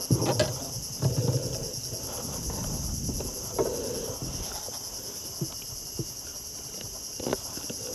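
A high, steady chorus of insects chirring without a break. Scattered knocks and low thumps come from a fish and landing net being handled on a wooden boat's deck, the loudest near the start and about a second in.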